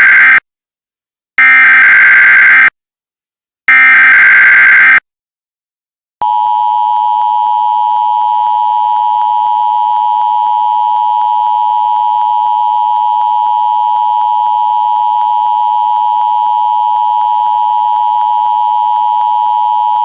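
Emergency Alert System SAME header data bursts: the end of one burst and then two more, each just over a second long and about a second apart. After a short pause, about six seconds in, the EAS two-tone attention signal starts, a steady dual tone that holds without a break.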